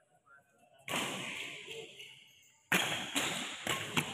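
Badminton rally in an echoing sports hall: sharp knocks of rackets hitting a shuttlecock and shoes striking the court. Two sudden loud hits, about a second in and near the middle, each ringing on in the hall, with quicker knocks toward the end.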